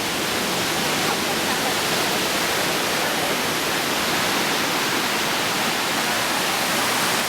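Skinny Dip Falls waterfall rushing steadily, an even, constant hiss of falling water.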